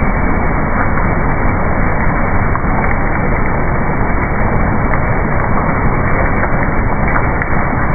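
Fried snack pieces tumbling in a rotating steel drum and pouring out of its discharge end, a dense, steady clatter over the running machine, with no letup.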